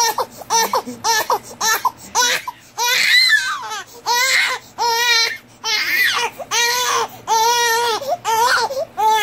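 Newborn baby crying hard: short, quick cries in the first few seconds, then longer high-pitched wails about once a second.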